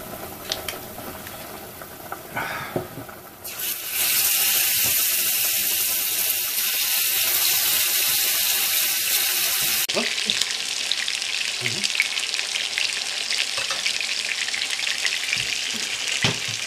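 Two meat fillets laid into a hot oiled frying pan, sizzling loudly from about three and a half seconds in and carrying on steadily. Before that there is only softer kitchen noise with a few light clicks.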